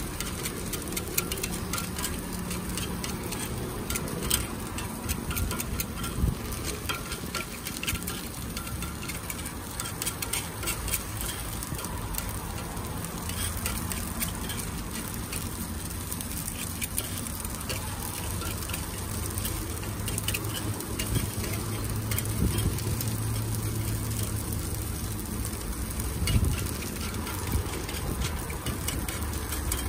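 Takoyaki batter sizzling on a takoyaki griddle, with rapid clicking and scraping of a takoyaki pick against the plate as the batter is cut and pushed into the wells.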